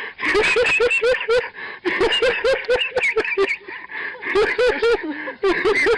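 People laughing hard in fits of quick repeated bursts, several voices at once, with short breaks between fits.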